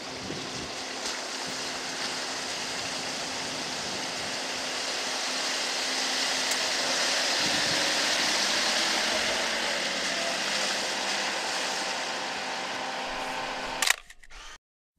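Off-road 4x4s driving through a shallow creek: a steady rushing noise of water and wind with a faint engine hum under it, swelling a little midway. About a second before the end it cuts off with a sharp camera-shutter click, then near silence.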